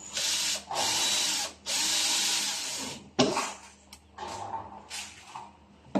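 Cordless drill-driver running in three bursts, the last and longest a little over a second, driving screws into the panels of a laminated-board cabinet. A single sharp knock follows just after three seconds in.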